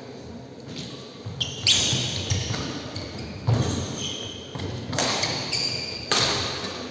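Badminton rally on a wooden court: a few sharp racket strikes on the shuttlecock about a second or so apart, mixed with short high squeaks of court shoes and footfalls on the floor.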